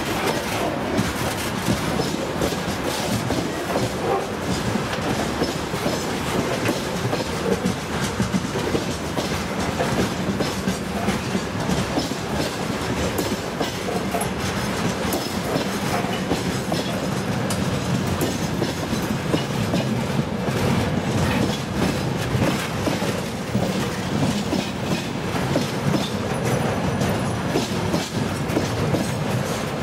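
Freight train wagons rolling past: a steady rumble of steel wheels on rail with a running clickety-clack of wheels over rail joints.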